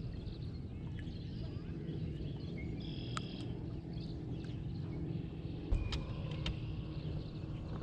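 Low, steady drone of a distant engine, with birds chirping now and then. Just before six seconds a sharp knock sounds in the aluminum boat as the man gets up.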